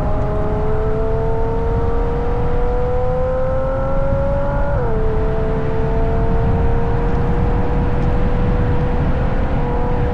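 Ferrari GTC4Lusso engine with Capristo exhaust accelerating while driving, its note climbing steadily, then dropping sharply on an upshift about five seconds in and climbing slowly again. Heavy road and wind rumble underneath.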